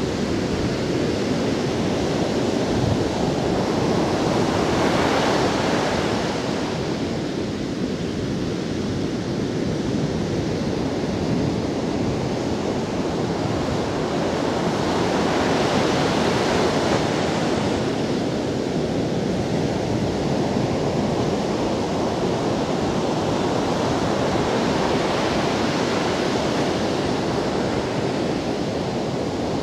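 Ocean surf breaking on a sandy beach: a steady rush of foaming water, with a wave swelling louder roughly every ten seconds.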